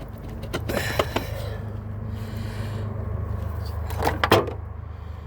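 A few short clicks and knocks of hands and tools on the throttle body and parts in a car's engine bay, loudest a little after four seconds in, over a steady low hum.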